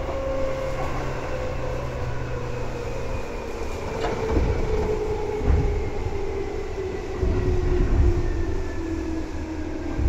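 Seibu 2000 series field-chopper electric train running and slowing, heard inside the car over the line breaker. Its motor tones fall slowly and steadily in pitch over wheel and track rumble, with a couple of knocks partway through.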